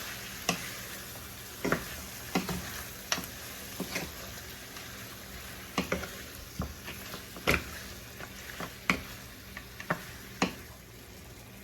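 Seasoned goat meat sizzling in hot browning (melted, browned sugar) in a pot as it is stirred and tossed, with a utensil knocking and scraping against the pot at irregular moments.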